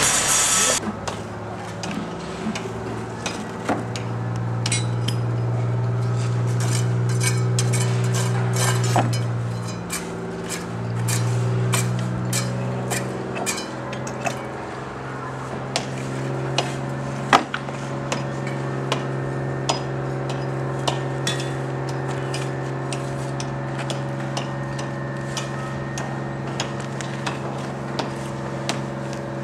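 A machine engine running steadily, swelling louder for a few seconds twice in the first half, under a string of sharp clicks and knocks from hand tools working a fresh concrete slab, with one louder knock about midway.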